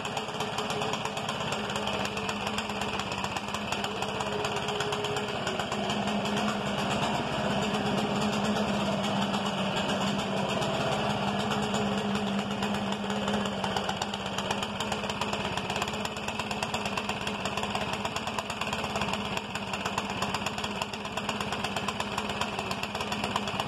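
Stihl BR 600 backpack leaf blower's 4-MIX engine idling steadily while the blower sits on the ground.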